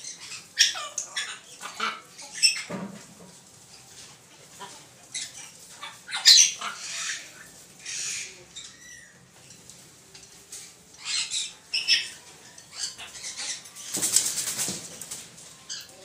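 Parrots in a wire aviary, macaws with small parakeets: scattered short, harsh squawks and chatter at irregular intervals, with a longer, noisier burst near the end.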